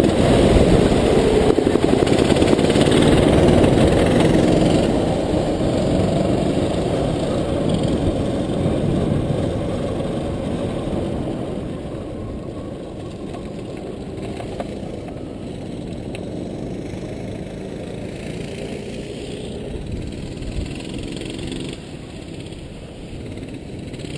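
Rental go-kart engine running on the track, heard from the driver's seat, loud over the first few seconds and then getting gradually quieter.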